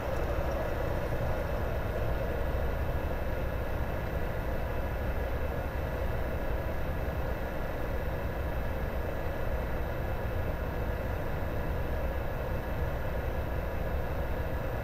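Taig micro lathe running steadily at its lowest spindle speed while the tool takes a facing cut across the end of aluminium bar stock: an even motor and drive hum with no change in pitch.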